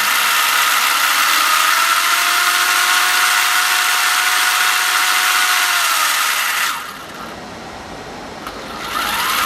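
DEERC 14210 RC car's brushless motor and drivetrain running at high throttle with the wheels spinning fast, over a loud hiss. A motor whine rises, holds steady and falls away. The sound drops sharply about seven seconds in and picks up again near the end.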